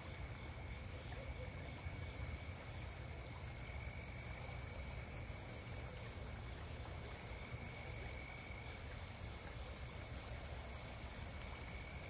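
Night insects calling steadily: one continuous high thin trill, with a faster pulsed chirping above it, over a low steady rumble.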